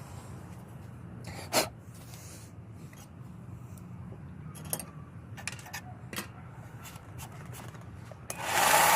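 A few sharp clicks and knocks of parts being handled, the loudest about a second and a half in. Near the end the Central Machinery 1-inch by 30-inch belt sander starts up abruptly and runs loud and steady.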